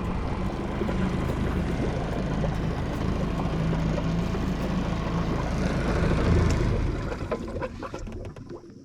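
A small fishing boat's motor running under way, with water rushing along the hull, dying down over the last two seconds.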